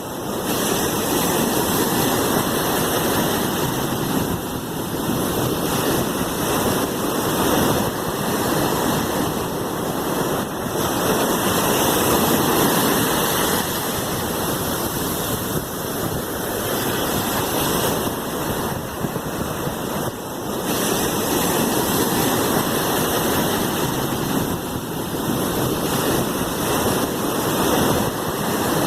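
Sea waves washing in a continuous rushing hiss that swells and eases every few seconds, with no single breaker standing out.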